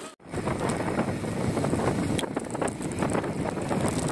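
Wind buffeting the microphone, a steady low rushing rumble with scattered crackles, starting right after an abrupt cut.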